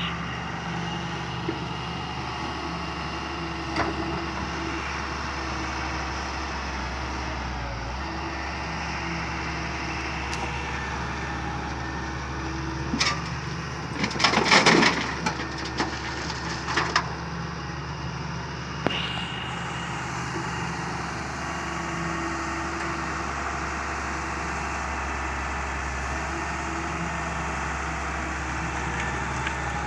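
Doosan Solar 130W wheeled excavator's diesel engine running steadily while it loads gravel, with a loud burst of gravel clattering and crunching about halfway through and shorter clatters a few seconds later.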